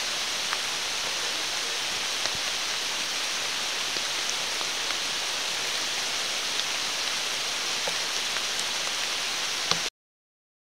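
Steady rain falling in the woods, an even hiss with scattered faint raindrop ticks; it cuts off abruptly near the end.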